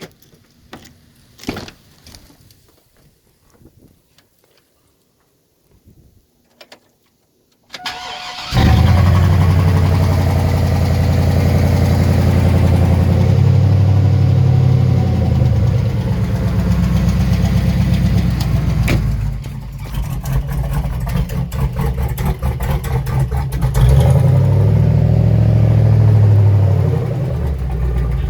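Truck engine cold start: after a few quiet clicks, the starter cranks briefly about eight seconds in and the engine catches, then runs loudly with its pitch rising and falling a few times.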